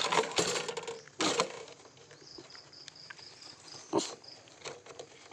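Short rustling and knocking bursts from a small plastic-and-wire rodent cage being jostled as a dog noses at it, the loudest near the start, about a second in, and about four seconds in. In the middle comes a quick run of about nine short high chirps, roughly four a second.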